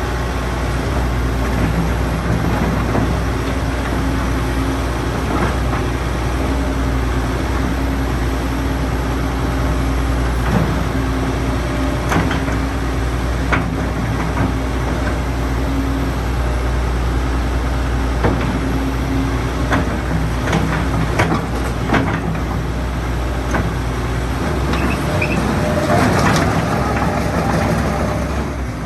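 Hitachi ZX130L-3 hydraulic excavator's diesel engine running steadily, with scattered sharp metallic clicks and knocks. About 25 seconds in, the low drone drops and a louder, noisier sound rises for a few seconds.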